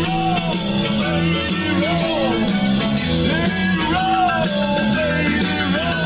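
Rock music with guitar, and a voice singing a gliding melody over it.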